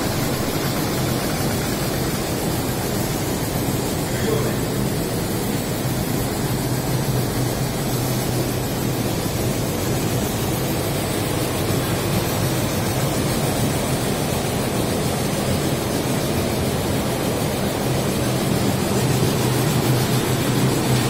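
Paper lamination machine running: a steady mechanical hum and whir from its motor, belt drives and rollers, getting a little louder near the end.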